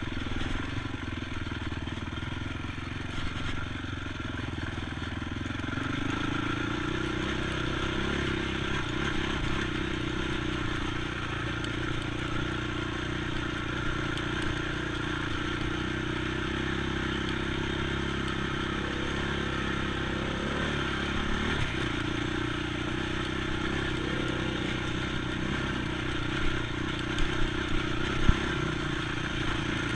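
ATV engine running under steady throttle, its note stepping up about six seconds in and then holding, with a few sharp knocks near the end.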